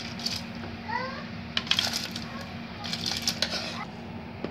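A metal ladle clinks and scrapes against an aluminium pot of boiling rice in two short spells, over a steady low hum.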